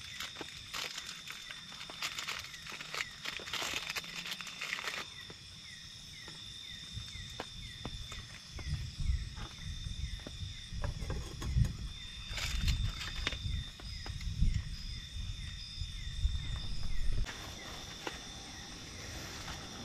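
Night insects chirping steadily, a high continuous trill with a quick repeating chirp beneath it. A plastic coffee sachet crinkles and tears through the first five seconds. A low rumble with a few knocks runs from about eight to seventeen seconds in.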